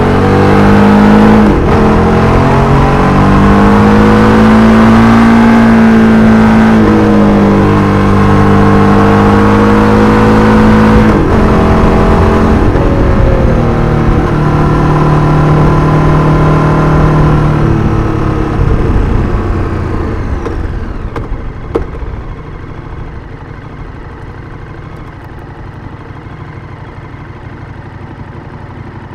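KTM 1290 Super Duke R's V-twin engine under way with wind rush, its pitch climbing and falling, with brief breaks in the engine note about a second and a half in and at about eleven seconds. From about eighteen seconds the bike slows down and the wind fades, and from about twenty-two seconds the engine idles steadily and much more quietly.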